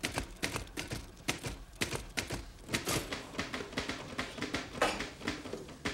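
Manual typewriter being typed on: sharp key strikes clacking in quick, uneven runs.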